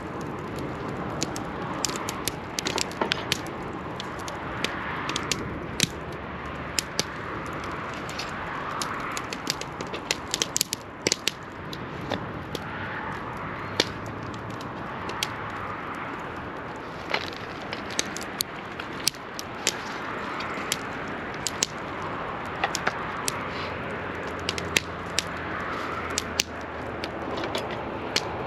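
Wood fire crackling, with frequent sharp, irregular pops and snaps over a steady hiss.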